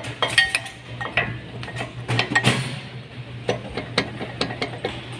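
New brake pads and metal caliper hardware clinking and tapping as they are fitted into a Mitsubishi Pajero's four-piston front brake caliper. It is a run of irregular light metallic clicks, some ringing briefly, over a steady low hum.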